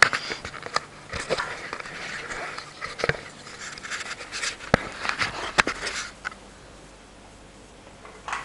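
Handling noises as an empty plastic tub is carried and set down: scattered knocks, bumps and scraping rustles, dying away about six seconds in.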